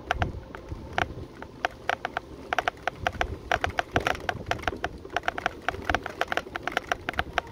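A mobility scooter rolling slowly along a tarmac road, rattling and clicking over the surface with irregular sharp ticks, several a second, over a low rumble and a faint steady hum.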